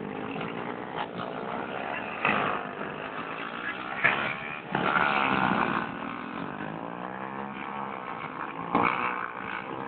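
Small motorcycle engines revving and riding past, their pitch rising and falling, loudest about five seconds in.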